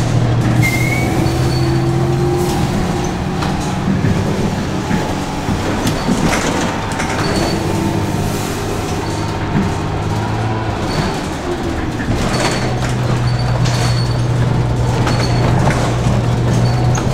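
City transit bus running and driving slowly, heard from inside the cabin: a steady low engine hum with rattles and knocks from the body, and short high squeaks every second or two.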